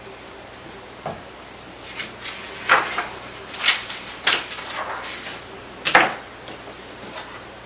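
Handling sounds on a tabletop: a paper sheet rustling and light knocks as a pen and small items are set down, in a string of short strokes with the loudest about six seconds in.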